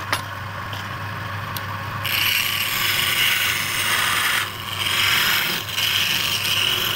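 A flat scraping tool cutting a spinning wooden blank on a lathe: a continuous rasping scrape over the lathe's steady low hum. The scrape grows louder about two seconds in and dips briefly twice after that.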